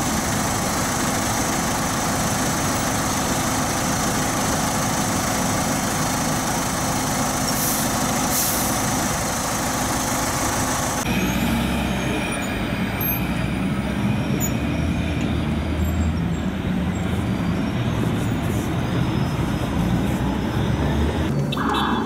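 City street traffic noise: large diesel buses and other vehicles running close by in a steady din. The sound changes abruptly about halfway through.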